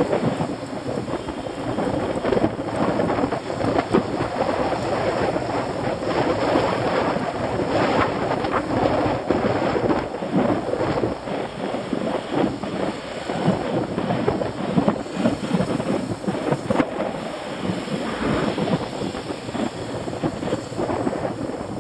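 Wind buffeting the microphone, a loud, uneven rumbling rush.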